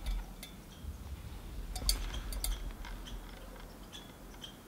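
Scattered light, sharp ticks at irregular intervals over a faint low rumble.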